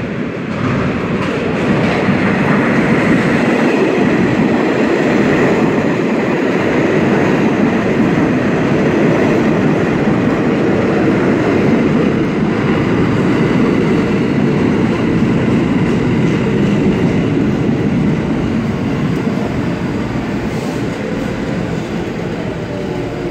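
New York City subway Q train entering the station: a steady rumble of steel wheels on rail that builds about a second in and eases slightly near the end.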